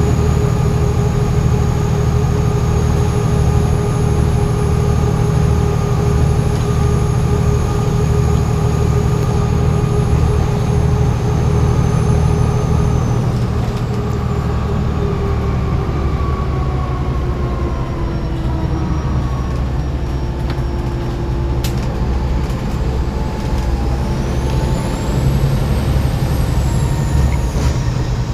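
Volvo B7TL bus's six-cylinder turbo diesel engine running under way over a steady low drone, with a high turbo whistle. The whistle holds steady, glides down a little under halfway through as the engine eases off, then rises and falls again near the end.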